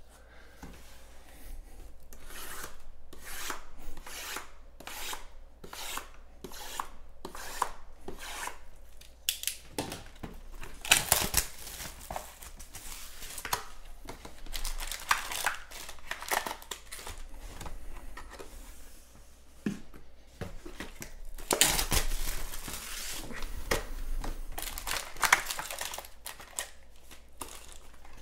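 Hands unwrapping and opening a sealed trading-card box, starting with a run of short, regular scraping strokes, about two a second. Then longer bouts of louder crinkling and rustling of cardboard, plastic wrap and foil packs as the box is opened and the packs are taken out.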